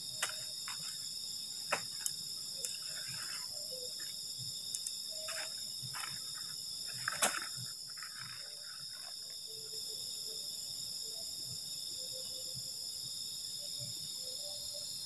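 Night chorus of crickets and other insects, a steady high-pitched chirring in several tones. Over it, the rustle of tent nylon and a few sharp clicks of tent poles being handled and fitted, the loudest click about seven seconds in.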